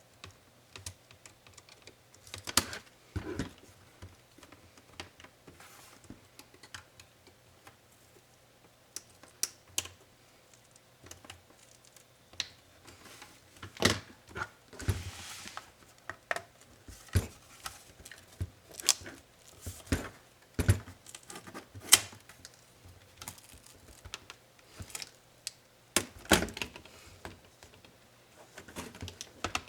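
Irregular clicks, taps and small knocks of plastic and metal laptop parts and small tools being handled during disassembly of a Dell Inspiron 7558, with a brief scraping sound about halfway through.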